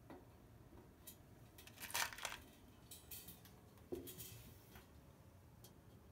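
Faint metallic clinks and scrapes as sizzle rivets are worked into a cymbal's holes with a screwdriver and the cymbal is handled. The loudest is a short scraping rattle about two seconds in, then a knock with a brief low ring about four seconds in.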